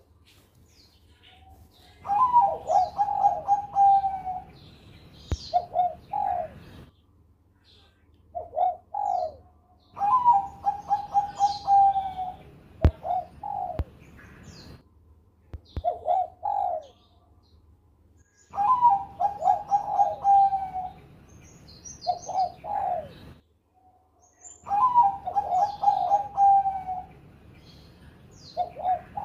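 Zebra dove (Bangkok-bred perkutut) cooing: four phrases, each a rising opening note running into a fast string of short coos, with a few separate short coos in the pauses between. Faint high chirps sound at the same time.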